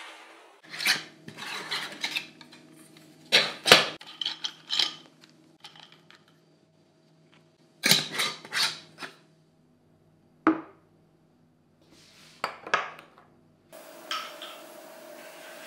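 Whole nuts clattering into a glass jar, then the jar's metal screw lid being handled, and later a ceramic bowl and wooden spoon knocking on a wooden tray. These are separate sharp clinks and knocks with gaps between them, loudest a little under four seconds in, over a faint steady hum, with a steady hiss coming in near the end.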